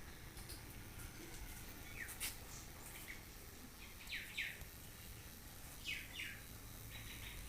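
Faint bird chirping: short, quickly falling chirps in pairs, once about four seconds in and again about six seconds in, over a low background rumble.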